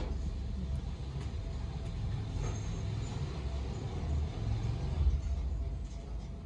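A low, steady rumble in the background, swelling slightly about two-thirds of the way through, with a few faint ticks.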